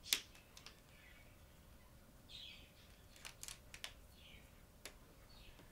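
Plastic marker pens clicking against one another as a handful is sorted and handled, with one sharper click just after the start and a quick run of clicks about three and a half seconds in. A few faint, high squeaks come in between.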